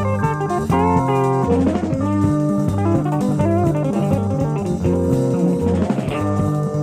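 Live jazz-fusion band: electric guitar playing melodic lines with bent notes over electric bass and drum kit. A 1970s concert recording taped off an FM broadcast onto cassette.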